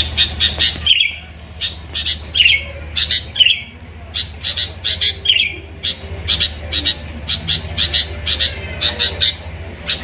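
Sooty-headed bulbul (kutilang) singing in its cage: quick runs of short sharp chirps broken by a few falling whistled notes, over a steady low hum.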